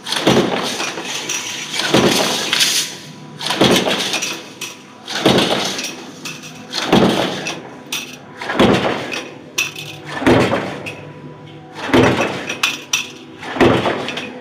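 Mechanical stamping press cycling with a progressive die: a metallic strike about every 1.7 seconds, nine strikes in all, each followed by a short clinking ring.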